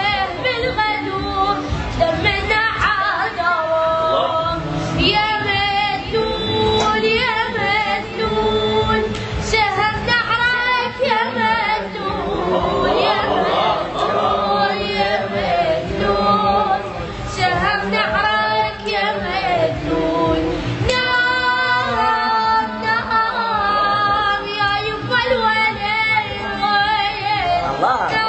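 Singing with a wavering, ornamented melody, the voice sliding between notes throughout.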